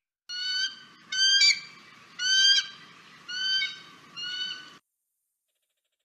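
Steller's sea eagle calling: five short, high calls about a second apart, each rising slightly in pitch.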